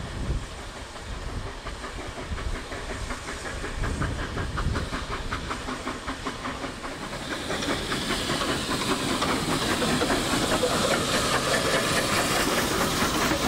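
Ex-South African Railways narrow-gauge Garratt steam locomotive coasting slowly in: a run of regular wheel clicks over the rail joints, then steam hissing that grows louder as the engine draws alongside. Wind rumbles on the microphone at the start.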